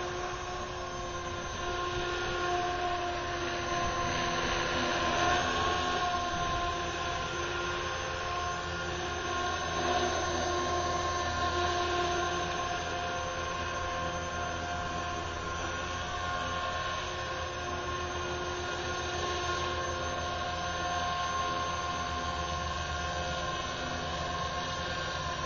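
Align T-Rex 450 SE V2 electric radio-controlled helicopter hovering: a steady whine from its electric motor and gears mixed with rotor noise, the pitch wavering slightly.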